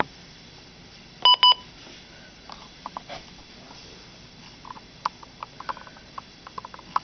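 Two short, loud electronic beeps from a Midland NOAA weather radio about a second in, followed by a scatter of faint clicks.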